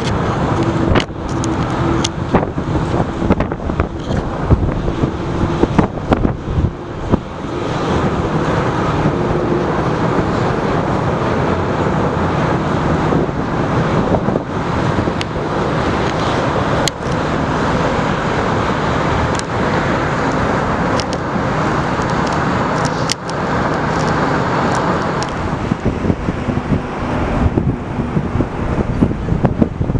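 Steady roar of jet airliner engines, swelling through the middle of the stretch, with wind gusts knocking and buffeting on the microphone.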